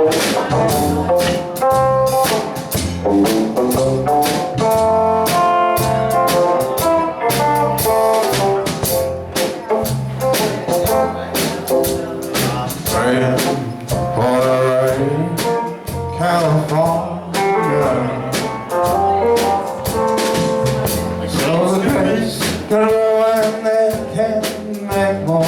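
Live band playing an instrumental passage with a drum kit keeping a steady beat under melodic instrument lines.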